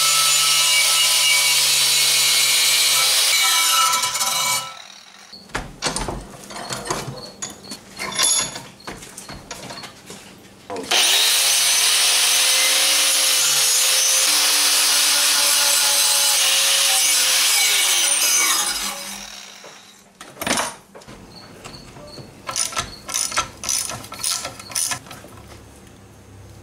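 Angle grinder with a wire cup brush scrubbing rust and old weld off a steel bumper bracket, cleaning it up for repainting. It runs twice at a steady pitch, for about four seconds and then for about seven, and each time the motor winds down with a falling whine. Between and after the runs come lighter, scattered knocks and clicks of metal.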